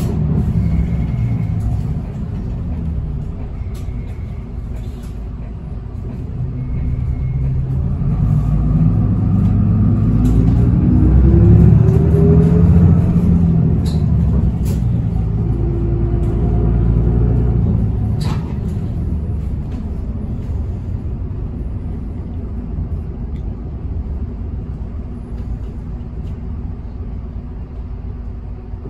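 Isuzu Erga city bus heard from inside, its diesel engine running with a low rumble. About a third of the way in the engine note climbs steadily in pitch as the bus accelerates, loudest around the middle, then eases back to a steady run. A few sharp clicks come just past the middle.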